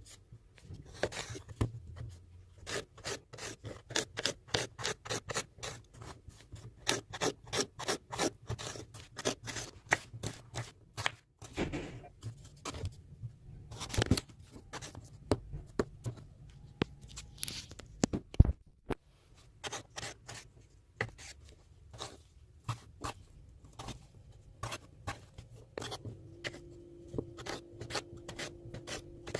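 A kitchen knife chopping on a cutting board in quick, even strokes, about three to four a second, with short pauses and a few harder knocks. A steady low hum comes in near the end.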